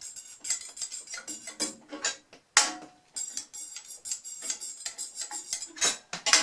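Steel straight edge and feeler gauge clicking, tapping and scraping against a table saw's cast iron top, a quick irregular run of light metal clicks with a sharper clack about two and a half seconds in and another near the end.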